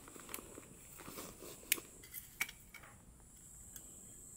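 Split firewood knocking and clacking as pieces are stacked onto a stainless steel fire pit: several sharp knocks in the first three seconds, the loudest a little under two seconds in, over a steady high-pitched hiss.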